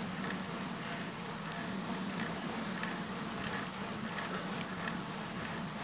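Steady rushing noise of riding a bicycle along a paved trail: wind over the microphone and tyres rolling on asphalt.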